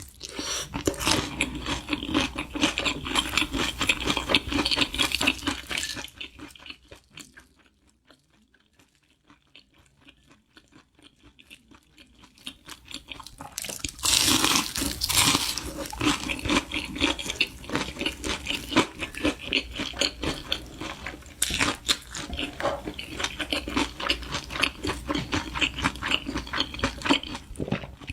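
Close-miked eating: crunchy bites and chewing of fried, breaded shrimp cutlet. It goes quiet for several seconds around a third of the way in, then the crunching resumes loudly.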